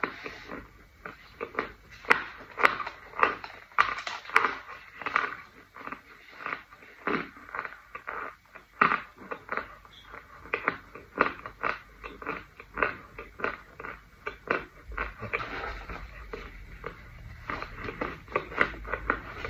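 Close-up crunching and chewing of a pressed powder brick in the mouth: a quick, uneven run of crisp crackly bites, several a second. A low rumble creeps in near the end.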